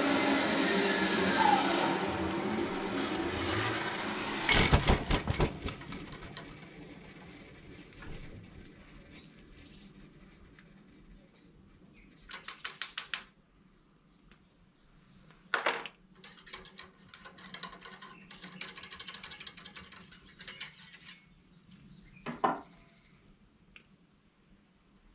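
Small clicks, ticks and rattles of gear being handled at a wooden shooting bench: a quick run of ticks, then a few single sharp clicks. Before that, a loud steady noise with a hum fades away over the first few seconds.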